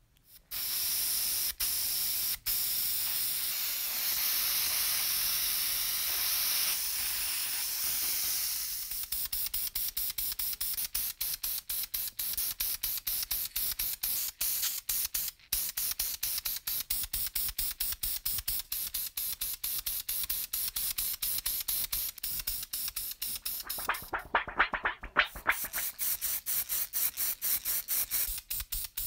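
Paint being sprayed: a continuous hiss for about eight seconds, then a fast, even run of short spray spurts of about four or five a second. A brief louder, pitched burst comes about three-quarters of the way through.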